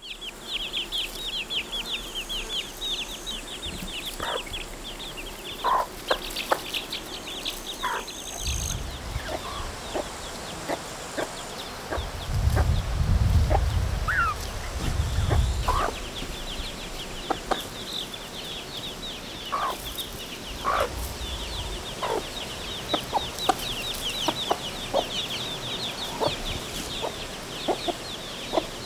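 A brood of chicks peeping continuously in quick high notes, with a hen clucking now and then. A low rumble swells for a few seconds near the middle.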